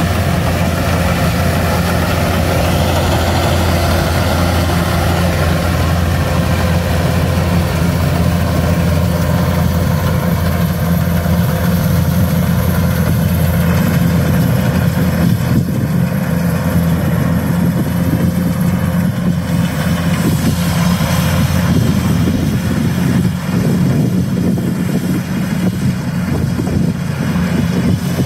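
Kubota DC-105X rice combine harvester working under load, cutting and threshing as it drives: its diesel engine and machinery give a steady low drone.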